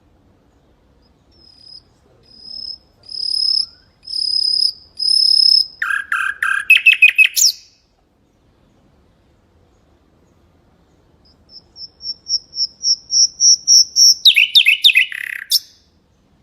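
Mangrove whistler singing two phrases. Each is a series of clear, high whistled notes on one pitch, growing louder, that ends in a quick tumbling run of lower notes. The first phrase starts about a second and a half in, and the second about eleven seconds in.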